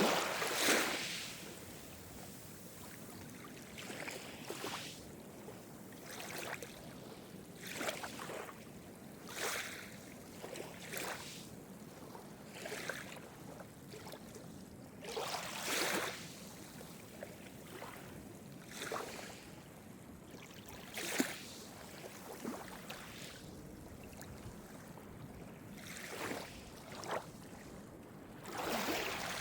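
Small, calm Mediterranean waves breaking and washing on the shore: a separate splash every one to three seconds over a steady hiss of surf. The biggest splashes come at the start and near the end.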